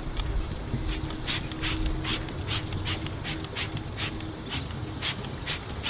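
Trigger spray bottle of wheel cleaner being squirted onto a car wheel: about a dozen quick sprays, two or three a second, each a short hiss, starting about a second in.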